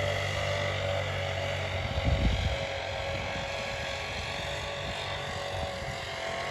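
Gas-powered leaf blower running steadily at high throttle, clearing debris out of the beds, with its engine hum and fan whine. There is a brief low rumble about two seconds in.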